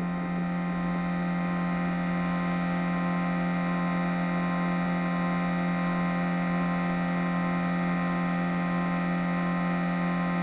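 A steady, unchanging low electronic drone with many overtones, held without a beat or melody: a droning soundtrack under the opening titles.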